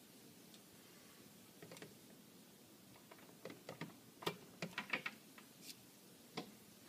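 A mains plug being worked out of a power strip socket: a few faint clicks about two seconds in, then a quick cluster of sharp plastic clicks and knocks, loudest just after four seconds, and one more click near the end.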